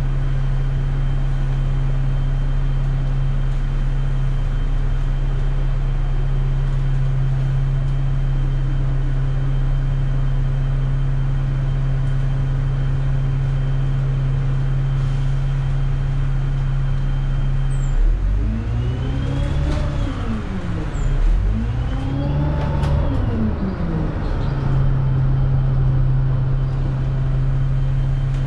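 Dennis Dart single-deck bus engine heard from on board, running at a steady note with a faint high whine. About two-thirds of the way through, the engine speed rises and falls twice, then settles back to the same steady hum.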